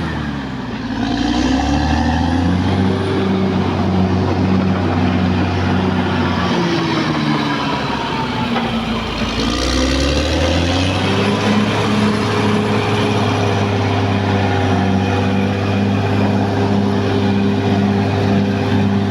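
Caterpillar D6R XL bulldozer's diesel engine running steadily. Its pitch drops and recovers twice: briefly near the start, then more slowly in the middle before climbing back up about ten seconds in.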